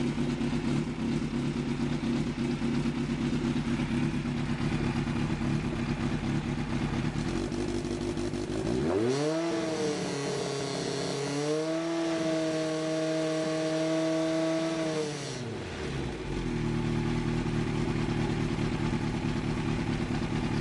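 1985 Yamaha FJ1100's inline-four engine idling, then revved up about nine seconds in to around 4,000 rpm and held there for about six seconds before dropping back to idle. The held rev is a charging-system check, with the alternator charging the battery at about 14 volts.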